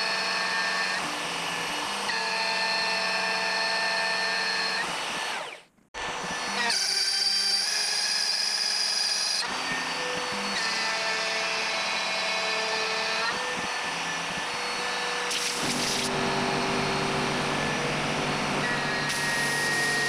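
Trim-router spindle of a DIY CNC router running and an end mill cutting aluminum plate in a contour pass: a steady high whine over cutting noise, stepping in pitch now and then. The sound drops out briefly about six seconds in and picks up again. From about two-thirds of the way through, more rumble and rushing noise are added.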